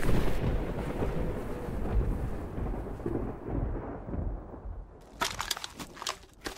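Rumbling storm wind of a snowstorm sound effect, which fades away over about five seconds. It then gives way to a crackling campfire sound effect of sharp irregular crackles.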